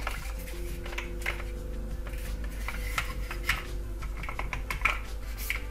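Hard plastic clicking and tapping as a model kit's display base plate is pressed down onto its plastic standoff pegs: a string of light, irregular clicks.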